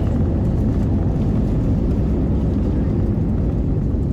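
Steady low rumble of a jet airliner heard from inside the cabin: engine and airflow noise.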